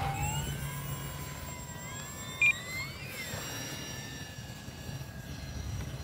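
Electric motor and propeller of a Flyzone Calypso RC sailplane whining under power as it flies by, the pitch rising and falling, over low wind rumble on the microphone. A short, loud high beep sounds about two and a half seconds in.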